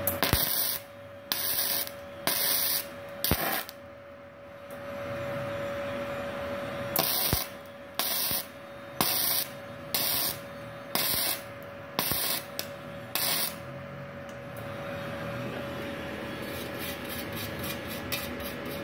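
Gasless flux-core MIG welding arc (0.8 mm flux-core wire) crackling in short bursts of about half a second: four in the first few seconds, then after a pause about seven more, roughly one a second, as the bead is laid in short runs on thin hollow section.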